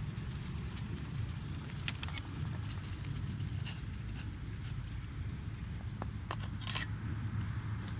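Campfire wood crackling: irregular sharp snaps and pops over a low steady rumble.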